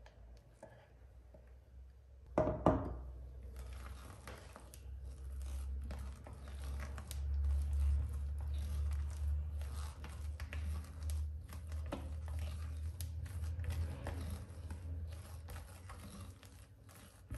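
Silicone spatula folding strawberry purée into whipped cream in a glass bowl: soft wet squelching and scraping that keeps going, after two knocks about two and a half seconds in.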